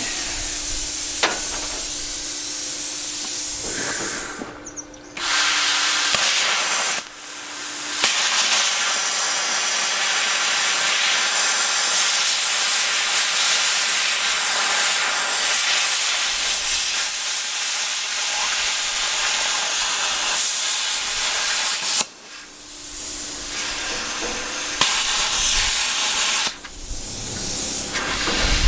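Plasma cutter cutting through the dishwasher's sheet-steel frame: a loud, steady hiss of the arc and air jet. It stops briefly about four seconds in, again near seven seconds, and twice in the last seven seconds, leaving a low steady hum in the pauses.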